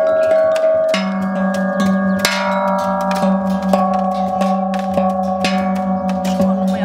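Homemade metal percussion played together: slotted steel tongue drums struck with mallets and sticks over a metal-bar metallophone, many overlapping bell-like ringing tones with frequent strikes. A strong low tone rings out from about a second in and is held.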